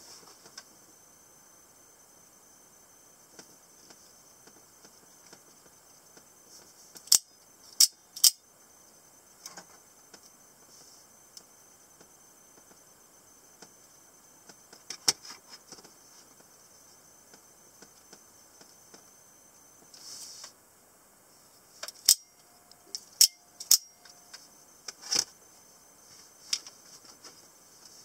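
Spring-loaded out-the-front automatic knives being fired: sharp metallic snaps as the blades shoot out of and back into the handles, about nine in all, three close together, then one, then five in quick succession, with light handling rustle between.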